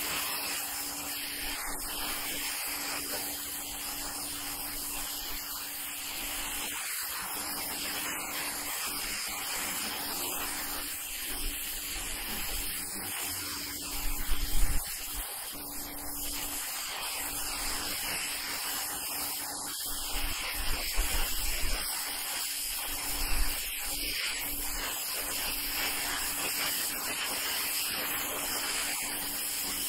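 High-pressure water jet from a Ryobi 1600 psi electric pressure washer with a turbo nozzle, blasting moss off asphalt roof shingles: a steady hiss, with a few brief low rumbles around the middle and later on.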